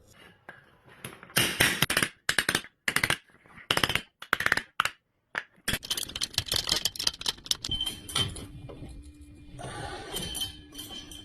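Garage door hardware being worked on: five short, loud bursts of rapid metallic clicking with pauses between them, then a longer, quieter run of clicking that thins to a light rattle near the end.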